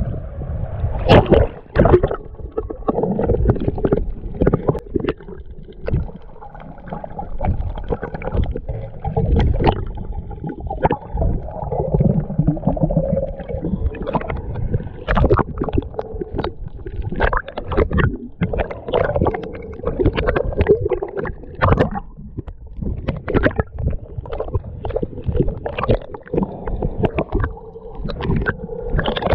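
Water sloshing and gurgling around a snorkeller, heard muffled as if underwater or at the waterline, with many irregular clicks and knocks.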